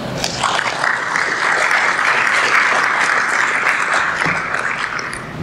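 Audience applauding, building up about half a second in and dying away near the end.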